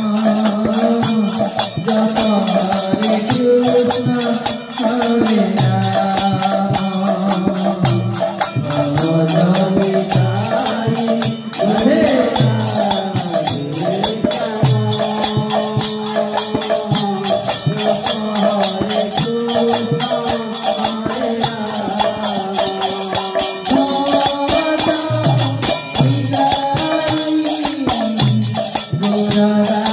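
Devotional Krishna namasankirtan: a man sings the chant into a microphone over a barrel drum and small brass hand cymbals keeping a steady, even beat.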